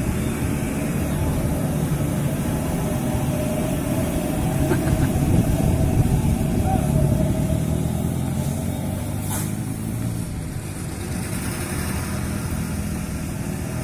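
Diesel engine of a Mitsubishi Fuso truck towing a trailer, running under load as it drives slowly through a tight bend. It is loudest about five to seven seconds in, then eases off, with a brief high hiss about nine seconds in.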